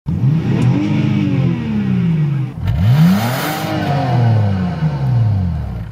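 Car engine revved twice, heard at the exhaust: each time the pitch climbs quickly and then falls away slowly as the revs drop.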